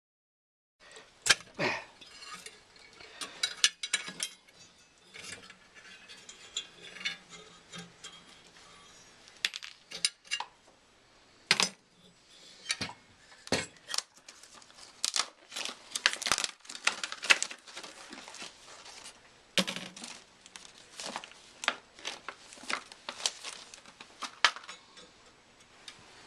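Irregular clinks, clicks and clatter of small metal parts and tools being handled, with some rustling.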